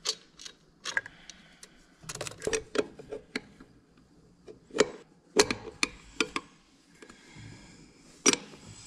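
Irregular sharp clicks and taps of hands and a hand tool working on the fuel injector lines and fittings of a 360 sprint car engine, the loudest about five and a half and eight and a half seconds in.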